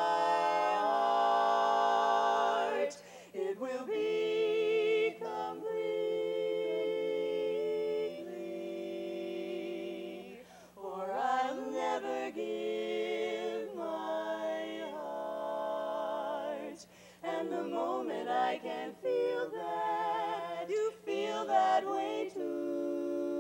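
Women's barbershop quartet singing a cappella in close four-part harmony, long held chords broken by a few short pauses.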